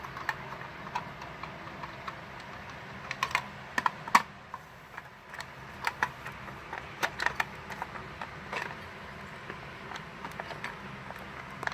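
Irregular light clicks and rattles of a key on a keychain being worked in the lock of a Simplex 2099-9795 fire alarm pull station, with the sharpest clicks about three to four seconds in.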